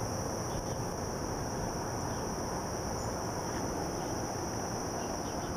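Steady, high-pitched insect chorus trilling without a break.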